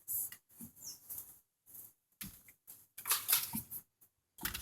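Irregular rustling and scuffing of someone moving about, with a busier patch about three seconds in.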